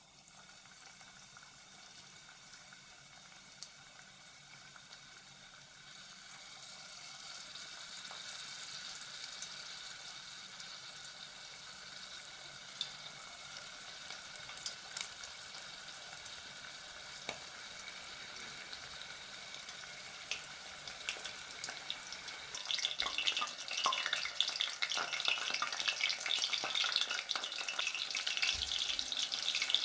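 Panko-breaded shrimp deep-frying in oil at about 170 °C: a steady high sizzle that builds as the shrimp go in, turning much louder and crackly about 23 seconds in.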